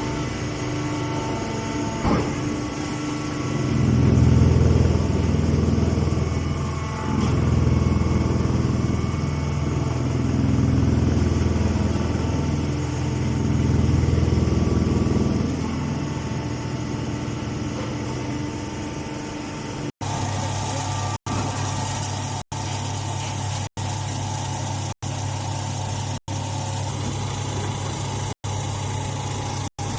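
A grass baler machine running with a steady motor hum, the low drone swelling louder in four waves during the first half. About two-thirds of the way in the sound changes to a flatter hum that cuts out for an instant about once a second.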